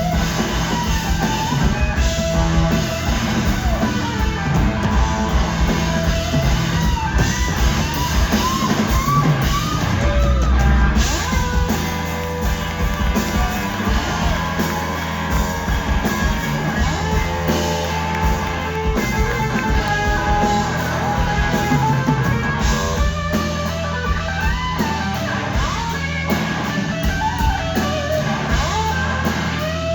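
Live blues-rock band playing: an electric guitar plays a lead line with bent notes over bass and drums.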